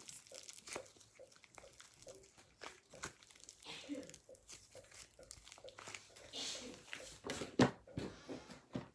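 Scented butter slime being squished and stretched in the hands, giving soft irregular crinkling and small crackling clicks, with a few louder knocks near the end.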